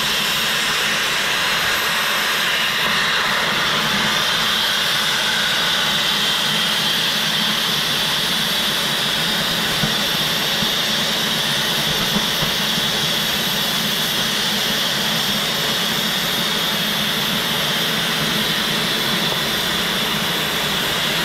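Oxy-fuel cutting torch on a Victor DC2400 duplicator hissing steadily as its cutting oxygen jet burns through 4-inch-thick metal plate.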